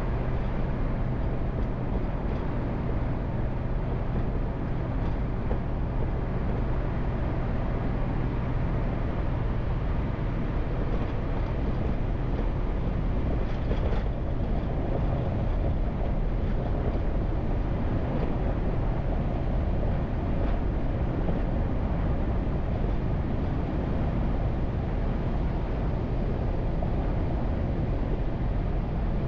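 Car driving at a steady speed: continuous tyre and road noise with low engine hum, a faint steady drone fading out about a third of the way in.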